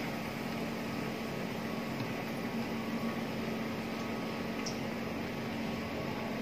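Batter-coated bread pakora deep-frying in hot oil in a steel kadai: a steady sizzle, over a constant low hum.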